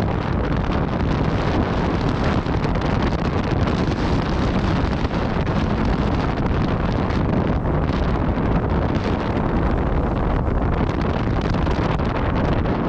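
Steady wind noise buffeting the microphone on a Tornado catamaran sailing fast, a dense low rushing that never lets up.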